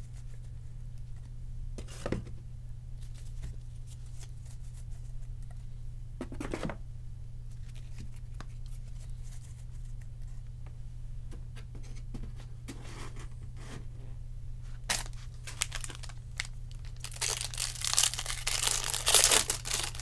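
Hands tearing open and crinkling the foil wrapper of a trading card pack: scattered small crinkles and clicks, then a stretch of loud continuous tearing and crinkling near the end. A steady low electrical hum runs underneath.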